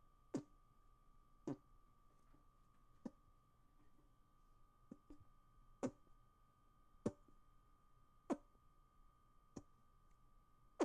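Hand-made fart noises: short, sharp pops of air squeezed out between the hands, about one every second and a quarter, with two softer ones about five seconds in. A faint steady hum lies underneath.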